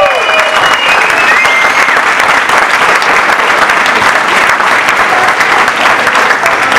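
Audience applauding, a dense, steady clatter of clapping. The last notes of the dance music trail off in the first second or two.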